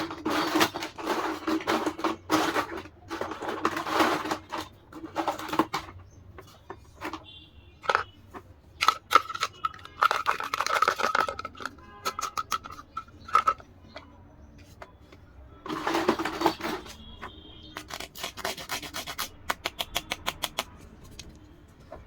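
Handling of dollhouse parts and their packaging: bursts of rustling and crinkling with many sharp clicks of small pieces, and a run of quick clicks near the end.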